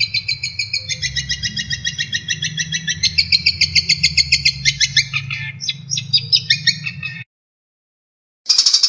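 Songbird singing a fast run of repeated high chirping notes, about eight a second, switching between several phrase types. The song cuts off abruptly near the end, and after a second of silence another burst of song starts.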